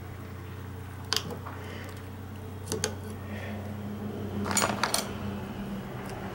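A few sharp metallic clinks and taps as a screwdriver works against the steel shell of a worn rubber bushing in a 1996 Lincoln Town Car front control arm to pry it out. There is one clink about a second in, a pair near three seconds, and a quick cluster around four and a half to five seconds, over a steady low hum.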